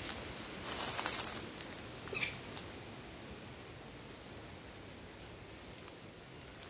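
Quiet outdoor ambience under trees: a couple of brief rustles about a second in and a short chirp about two seconds in, over a faint steady high-pitched insect drone.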